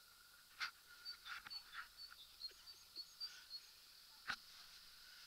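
Quiet outdoor ambience: a handful of soft scattered clicks, with faint, brief high chirps.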